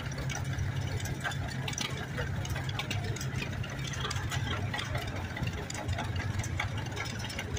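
Vintage John Deere two-cylinder tractor engine running steadily at low speed as a John Deere 60 rolls past.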